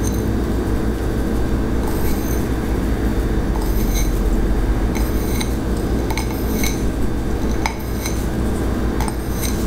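Glass prep bowls clinking lightly as salt is pinched from a small glass bowl over a large glass mixing bowl of flour: a scattering of short, ringing clinks at uneven intervals, over a steady low hum.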